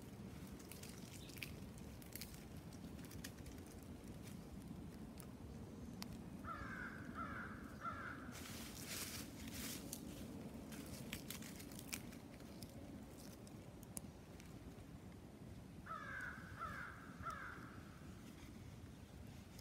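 A crow calling in two runs of three quick caws, about nine seconds apart, over faint rustling and small clicks.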